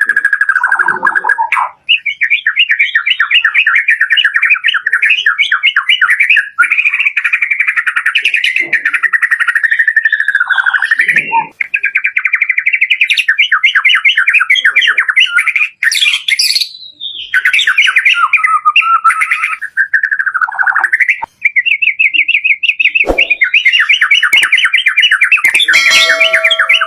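White-rumped shama singing a loud, fast, varied song of rapidly repeated trilled notes, in phrases of a few seconds with brief pauses between them.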